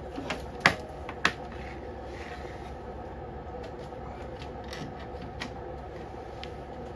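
Sharp clicks and knocks of plastic and metal parts being handled as a snowblower engine's plastic covers are taken off. The two loudest come about half a second apart in the first second and a half, with a few lighter taps later, over a steady background hum.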